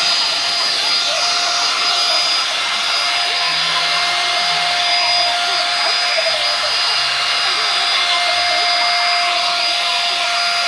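Revlon One-Step hot-air brush (hair dryer brush) running steadily as it dries wet hair: a constant rush of blown air with a steady high whine from the motor.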